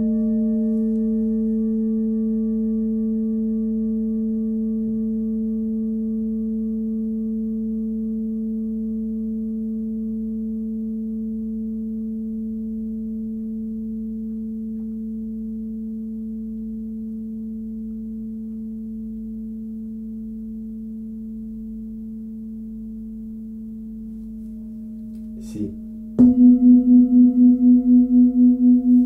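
A forged Tibetan singing bowl rings with a steady low tone and fainter overtones above it, fading slowly. About 26 seconds in there is a light tap, then a second bowl is struck. Its slightly higher note rings out louder, with a steady wah-wah pulse about two to three times a second.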